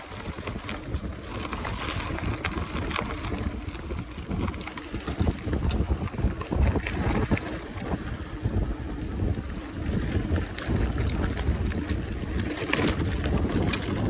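Wind buffeting the microphone of a mountain bike moving at speed, a fluttering rumble that slowly grows louder, with scattered clicks and rattles from the bike on a rough road.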